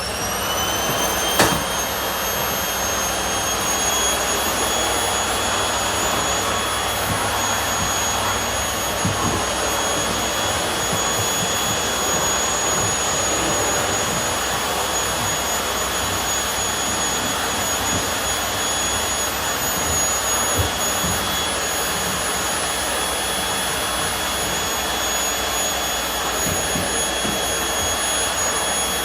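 Household vacuum cleaner running steadily with a high motor whine, the motor settling to full speed in the first second. There is a brief knock about a second and a half in, and a few light bumps later on.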